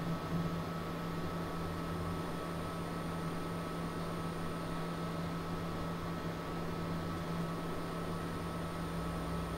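Steady low electronic drone: a held hum with a fainter higher tone above it and an even hiss, unchanging throughout.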